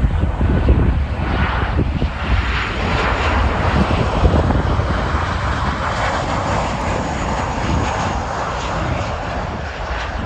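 Airliner passing, its engine noise building and then slowly easing off, with wind buffeting the microphone underneath.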